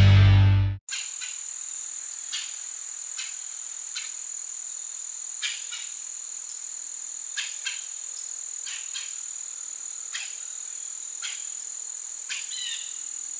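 A loud rush of water with music cuts off abruptly under a second in. Then a cricket chorus keeps up a steady high trill, with scattered faint ticks and two short bird chirps near the end.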